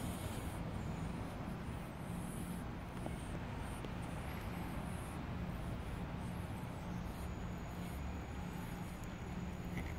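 Steady low mechanical hum of background noise, with no clear chewing or crunching standing out.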